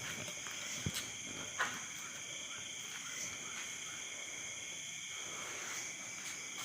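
Steady night-time insect chorus, a shrill trilling held in several high pitches at once, with two short soft knocks in the first two seconds.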